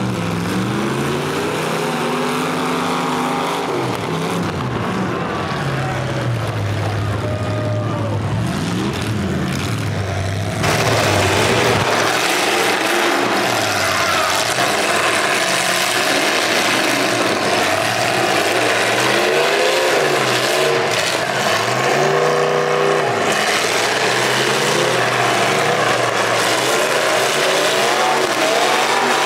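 Demolition derby cars' engines revving, their pitch repeatedly rising and falling as several cars accelerate and back off. About ten seconds in, the sound abruptly turns louder and brighter.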